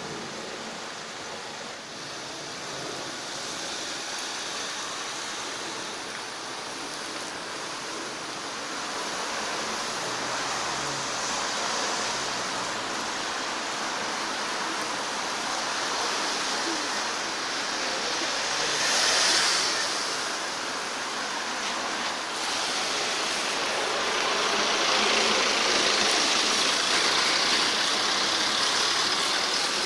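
Steady rushing road noise of a moving vehicle or passing traffic, slowly getting louder, with a brief swell about two-thirds of the way in.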